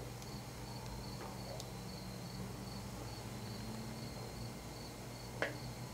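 Quiet room tone with a steady low hum and a faint, high-pitched chirp that pulses evenly several times a second. There is one light tap near the end.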